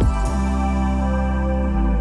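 Calm new-age background music: sustained synth tones over a deep bass drone, with a falling bass swoop at the very start and a change of bass note near the end.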